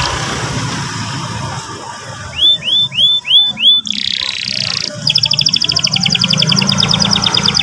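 Canary song: five repeated upswept whistled notes about halfway through, then a short buzzy note, then a long fast trill (a roll) from about five seconds in.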